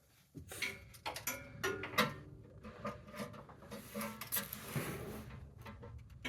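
Irregular clicks and knocks of hand tools at work under the hood, as the oil filter is worked off the small-block V8.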